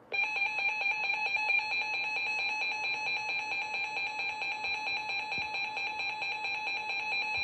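Emergency alert attention tone: a steady, piercing electronic alarm that starts suddenly and holds without a break. It signals that a new severe thunderstorm warning is about to be broadcast.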